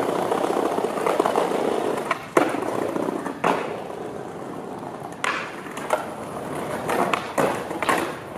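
Skateboard wheels rolling over brick pavers, a continuous rumble broken by sharp clacks of the board: the loudest about two and a half seconds in, with several more spread through the rest.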